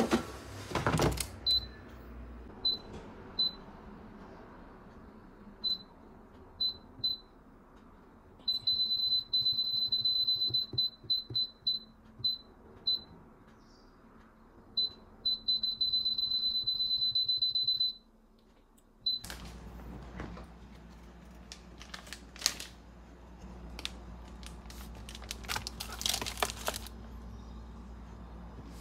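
Electronic beeps at one high pitch from a kitchen appliance's keypad or timer. First come single short beeps a second or so apart, then long runs of rapid beeps. About two-thirds of the way through, the beeping stops and a steady low hum starts, with a few knocks.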